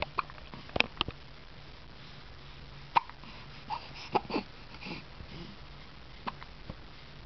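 Newborn baby hiccuping: short, sharp hics at irregular spacing, about one a second. Near the middle come a few soft little vocal sounds.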